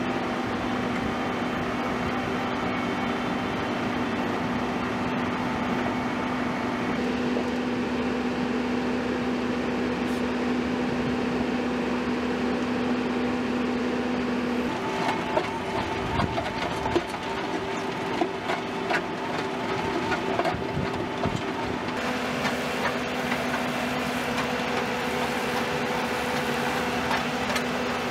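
Power Curber slipform curb machine running with a steady engine hum whose tones shift a few times. Scattered knocks and clatter come through in the middle.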